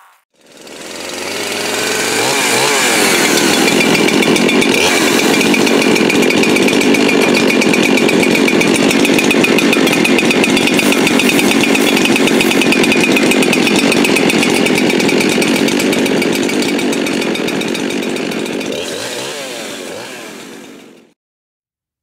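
Jonsered CS-2172 X-Torq two-stroke chainsaw engine running steadily while brake cleaner is sprayed around it to check for crankcase air leaks. It comes up to speed over the first couple of seconds, dies away near the end, then cuts off.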